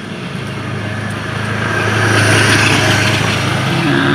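A small engine running with a steady low hum, growing louder through the middle and then easing off.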